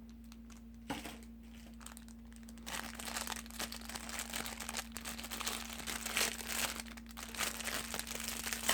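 Plastic packaging crinkling as it is handled, with a single click about a second in and continuous crackling from about three seconds on.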